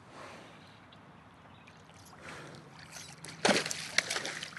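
A small boat motor running with a low steady hum, joined by a sudden loud burst of noise about three and a half seconds in and another half a second later.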